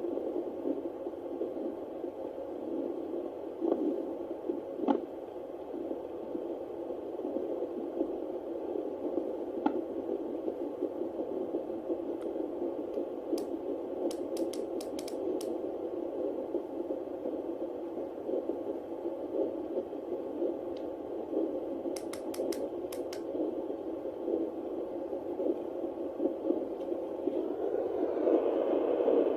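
Home fetal Doppler's speaker hissing and crackling as the probe searches, with a faint fetal heartbeat picked up in the static about ten seconds in. A few sharp clicks and ticks come through the hiss.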